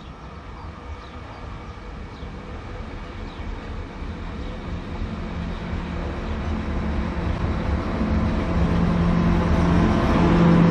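PESA Link diesel multiple unit (SA139) arriving and drawing alongside the platform. Its rumble and engine note grow steadily louder as it comes in.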